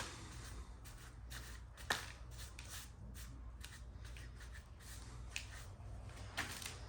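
Paint roller with a heavy nap working thick primer onto coarse old plaster: short irregular rasping and rustling strokes, with a sharp knock at the start and another about two seconds in.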